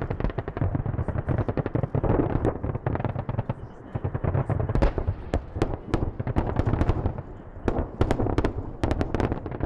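Live-fire barrage: a dense, rapid stream of sharp reports like automatic weapons fire over a steady low rumble of detonations. It eases briefly about four seconds in and again around seven seconds.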